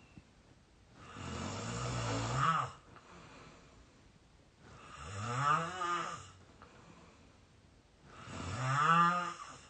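A young man snoring in deep sleep: three squeaky snores, evenly spaced, each with a pitch that rises and then falls away.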